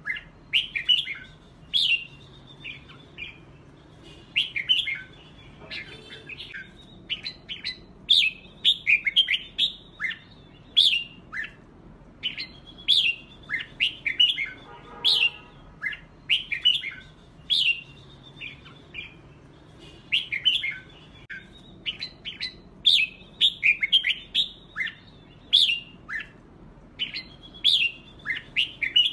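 Red-whiskered bulbuls singing competitively: bright, quick whistled phrases of short rising and falling notes, repeated every second or two.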